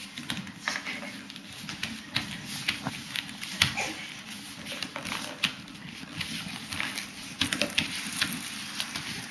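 Irregular light taps and pats from a baby's hands and knees on a foam play mat and wooden floor as it crawls, over a steady low hum.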